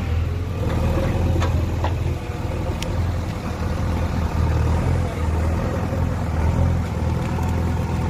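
JCB backhoe loader's diesel engine running steadily as the backhoe arm digs soil, with a few light knocks in the first three seconds.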